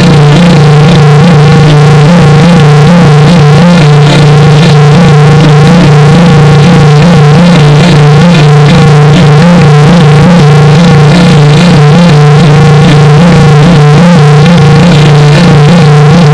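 Loud, heavily distorted electronic audio effect: a steady low buzzing drone with warbling, wavering tones above it, clipped at full volume with no pause.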